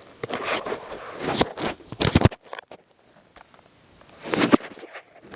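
Irregular rustling and handling noises with a few sharp clicks and knocks, strongest about two seconds in and again a little after four seconds.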